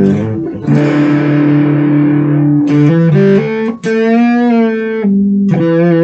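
Electric guitar on its bridge pickup played through a Sonicake Fazy Cream fuzz pedal: fuzzy, sustained chords, a few quick chord changes about halfway, then a held note with a wavering pitch before another chord rings.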